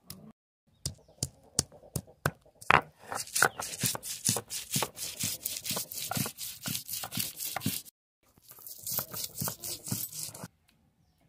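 Garlic cloves being crushed and ground on a wet stone grinding slab with a hand-held round stone. A few sharp taps come first, then a long run of quick, rhythmic, gritty scraping strokes. There is a brief break, then more strokes before it stops near the end.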